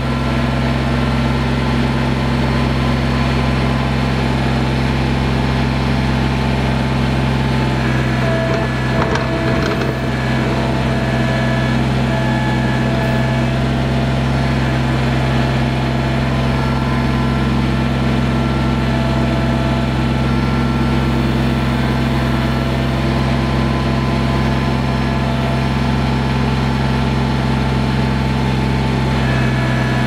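Kubota BX23S compact tractor's three-cylinder diesel running steadily while its backhoe digs the trench, with a fainter whine coming and going over the engine. The bucket scrapes and crunches through dirt and shale.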